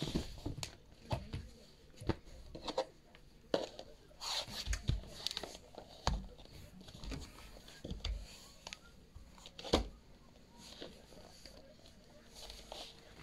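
Cloth rustling and handling noise as clothes are moved and folded near a phone's microphone, with many irregular knocks and bumps of the phone being handled.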